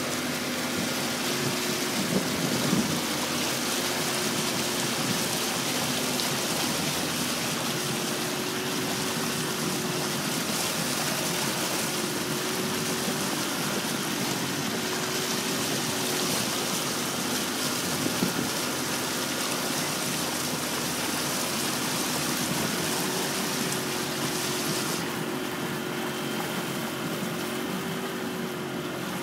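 Steady rush and splash of river water along the hull of a moving felucca, with a faint, wavering hum underneath. The higher hiss drops away near the end.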